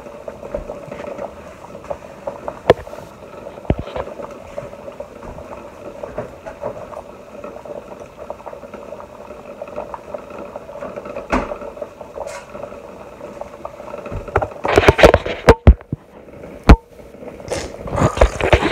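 A steady hum in a kitchen, with scattered clicks and knocks. About fifteen seconds in comes a burst of loud clattering, and near the end there is loud handling noise as the camera is picked up.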